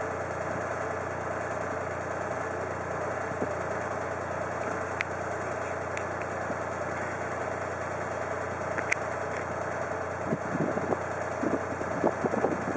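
A motor running steadily, with a low hum under it. Irregular knocks and rustling come in during the last few seconds.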